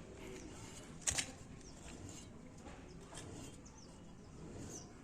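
Birds chirping in short calls over a low background hum, with one sharp click about a second in.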